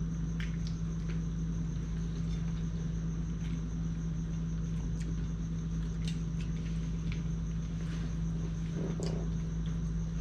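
A steady low electrical or appliance hum with a thin high whine above it, and scattered faint clicks and taps of people eating by hand from ceramic plates.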